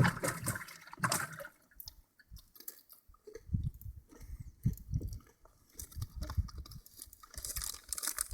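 A child chewing a mouthful of Doritos tortilla chips, with irregular crunching.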